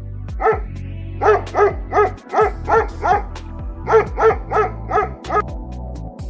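A dog barking about a dozen times in two quick runs, roughly three barks a second, with a short pause in the middle.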